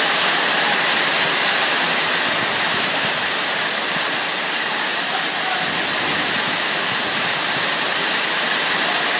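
Small hail and rain falling hard and steady, a dense, even hiss of stones pelting the ground and parked cars.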